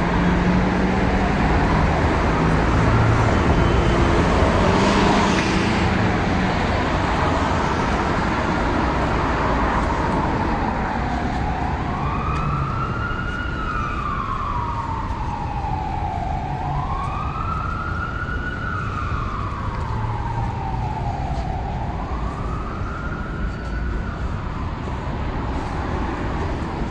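Emergency vehicle siren wailing, rising and falling slowly about every four to five seconds, clearest from about a third of the way in, over steady city traffic noise.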